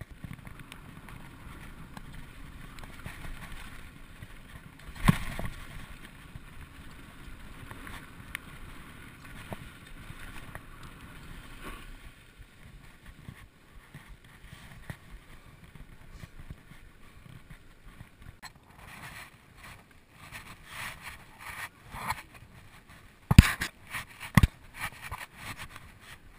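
2012 Specialized SX Trail mountain bike ridden over a dry dirt trail, heard from a helmet camera: steady trail noise with a loud knock about five seconds in. Near the end come a run of sharp knocks and clatter from the bike over rough ground, the two loudest close together.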